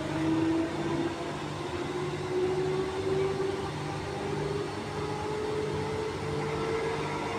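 Transperth A-series electric train pulling away, heard from inside the carriage: a whine rising slowly in pitch as the train gathers speed, over a steady low hum.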